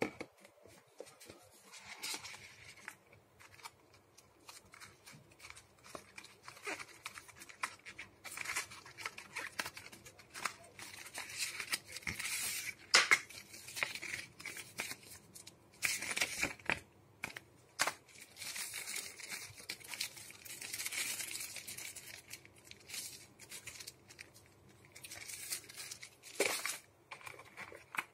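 Smartphone retail packaging being unpacked by hand: paper leaflets, plastic wrap and the plastic sleeve of a phone case rustling, and the cardboard box and insert tray sliding and tapping, in irregular bursts with short pauses.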